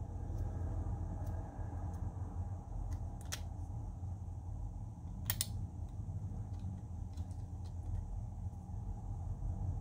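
Small metal paint pans clicking against a metal pocket palette as they are lifted out and handled: two sharp clicks about two seconds apart, the second louder, and a few faint ticks. A steady low hum runs underneath.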